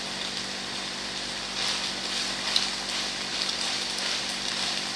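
Pesto pasta with tomato and olives sizzling in a frying pan over the flame: a steady crackling hiss, with a sharper tick about halfway through.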